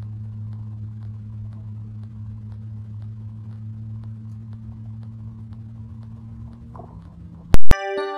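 Steady low hum of a vehicle driving, heard from inside the cabin, with faint ticks at a regular pace. Near the end a sudden, very loud burst cuts in, followed by the start of a chiming jingle.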